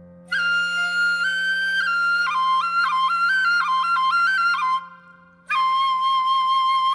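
Sogeum, the small Korean transverse bamboo flute, playing a high solo melody: a phrase of quick ornamented notes, a short breath pause about five seconds in, then one long held note. A faint steady low tone sounds underneath.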